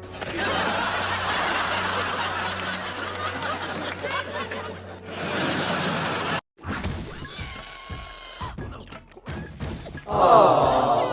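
Dubbed-in comedy sound effects: a dense stretch of laughter, broken by a sudden cut about six and a half seconds in, with a loud burst near the end.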